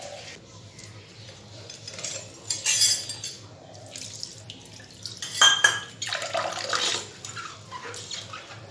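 Water poured from a steel tumbler over a stone Shiva lingam, splashing and running into the basin around it, in several uneven bursts, the loudest a little past halfway.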